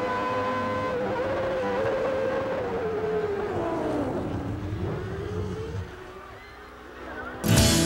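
Onboard sound of a 1989 McLaren-Honda Formula One car's Honda V10 held at high revs, then falling in pitch as the car brakes and shifts down for the chicane, rising briefly and fading. Near the end it is cut off by a sudden loud burst of music.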